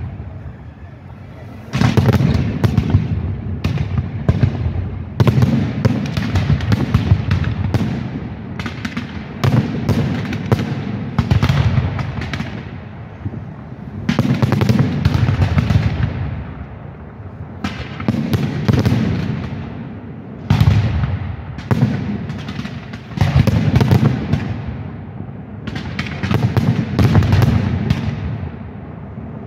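Aerial fireworks display: repeated loud bangs of bursting shells in volleys every two to three seconds, each followed by crackling and a low lingering echo.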